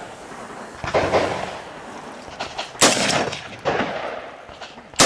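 Rifle shots fired singly a second or so apart, about four or five in all, each sharp crack followed by a long rolling echo. They are a competitor's opening shots on a practical rifle stage.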